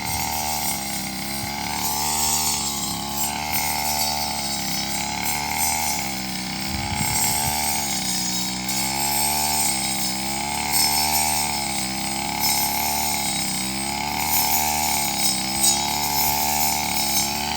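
Small engine of a motorised brush cutter running at high speed while cutting grass, its pitch rising and falling every second or two as the blade takes each swath.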